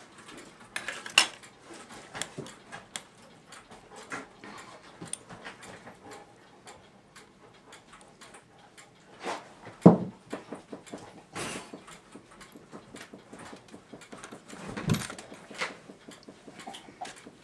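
Irregular small metallic clicks and taps from a brass clock movement's strike levers and parts being handled, with a few louder knocks, the loudest about ten seconds in.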